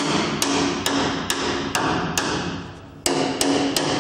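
A hammer striking the sheet-metal flange of a VAZ-2110's front chassis rail to straighten out a wave in the steel. Sharp metallic blows come about two a second, each ringing briefly, then a short pause and three quicker blows near the end.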